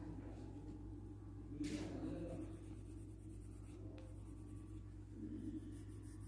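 Crayon rubbing back and forth on paper while colouring in, faint over a steady low hum, with one louder scrape about two seconds in.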